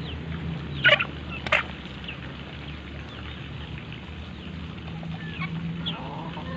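Two sharp knocks about half a second apart, a second in, over a steady low hum, with short high bird chirps scattered throughout.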